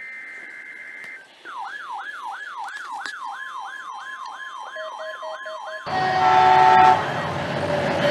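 Emergency Alert System radio broadcast: the last second of a data burst of rapidly alternating high tones, then an electronic siren yelping about three times a second for roughly four seconds. About six seconds in, this gives way to a louder rushing noise with several steady tones.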